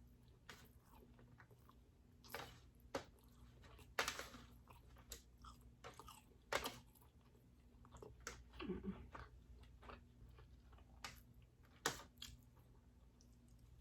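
Close-up mouth sounds of someone eating king crab meat dipped in garlic butter sauce: soft, wet chewing and lip smacks coming irregularly, a few sharper than the rest.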